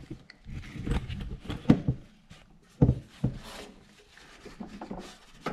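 A few scattered knocks and clunks, with some scraping between them, from mower deck parts being handled and worked into place during a belt and spring refit.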